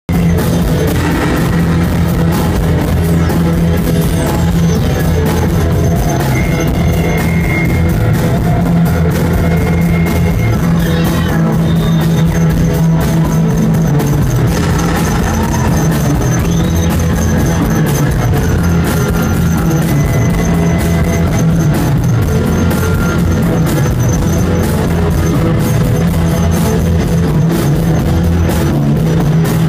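Live rock band playing loudly: electric bass and guitars over a drum kit in a dense, unbroken wall of sound, with a few sliding high guitar tones on top.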